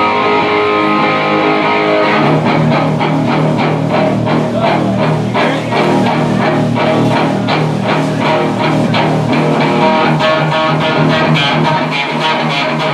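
Rockabilly band playing live, with electric guitar and bass guitar. Held chords open it, then a steady driving beat with a pulsing bass line comes in about two seconds in.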